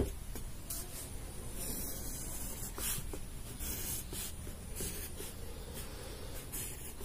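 Pencil scratching on paper as short straight lines are drawn, one separate stroke after another. A single sharp click comes right at the start.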